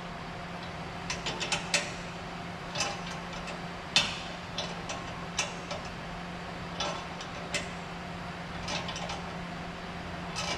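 Irregular metallic clicks and clinks of hand tools on the exhaust hanger and tailpipe bolts as they are tightened, about a dozen scattered knocks with the sharpest about 4 seconds in, over a steady low hum.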